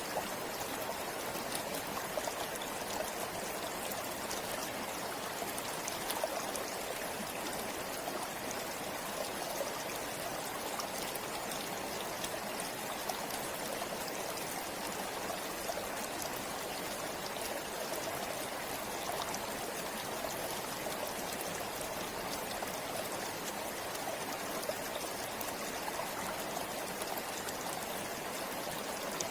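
Forest river or stream flowing steadily, a constant rush of water with small splashes and trickles.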